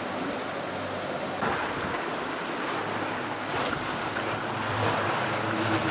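Motorboat under way at speed: a steady engine drone under the rush of water along the hull, with wind buffeting the microphone.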